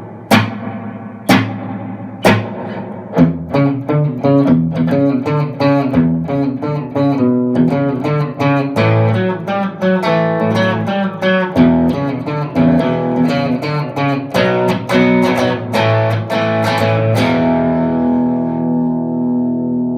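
Electric guitar played through a two-knob spring reverb pedal set to a short slapback, rockabilly style. A few struck chords give way to a quick run of picked notes, and the playing ends on a chord left ringing for the last few seconds.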